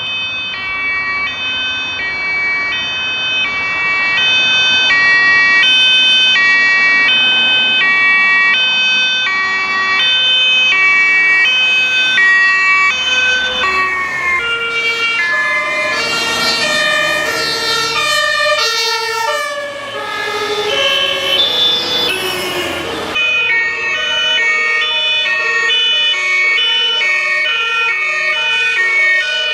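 Fire truck two-tone siren alternating steadily between a high and a low note. About halfway through, a second siren overlaps it with sliding pitch. A few seconds later the sound cuts abruptly to another two-tone siren that alternates faster.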